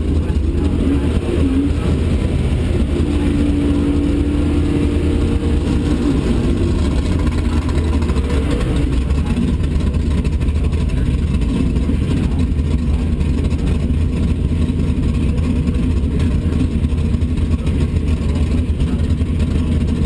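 Car engines idling with a steady low rumble.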